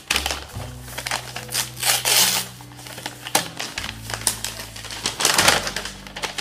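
Rustling and crinkling of a still-wrapped notebook's packaging as it is handled, with louder bursts about two seconds in and about five seconds in, over background music with sustained low notes.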